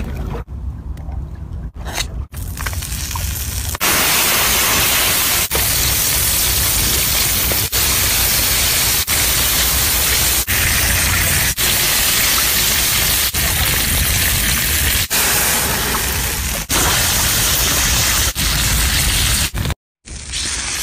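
Loud, steady sizzling hiss of seafood and liquid cooking on a fire-heated stone slab, with a low rumble underneath. It is broken by brief dips every second or two. The first few seconds are quieter, with a few clicks, before the sizzling starts.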